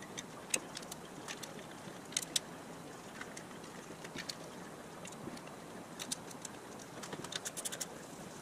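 Faint, scattered metallic clicks and ticks of a tap and T-handle tap wrench being worked by hand in a flywheel's newly drilled bolt holes, over a low steady hiss.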